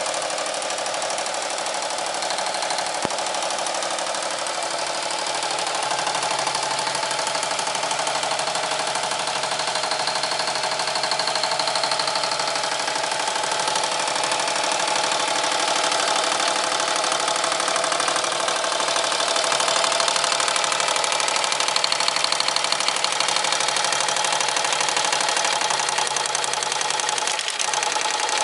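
Melco EMT10T ten-needle commercial embroidery machine stitching: a steady, rapid mechanical clatter of the needle striking over and over as the hoop moves.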